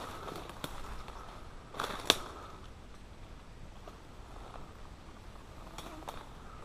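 Footsteps through leaf litter and undergrowth, with leaves and stems brushing past and scattered small clicks. A single sharp snap about two seconds in is the loudest sound.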